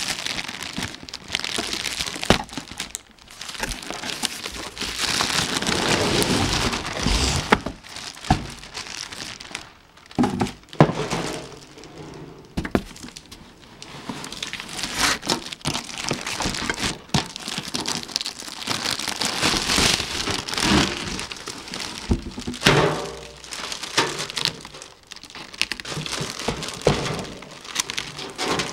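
Plastic packaging bags crinkling and rustling while plastic-wrapped metal mesh cart tiers are slid out of a cardboard box, with the cardboard scraping and occasional sharp knocks.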